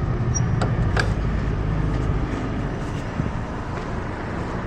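A vehicle engine running steadily, with a few short sharp clicks in the first second.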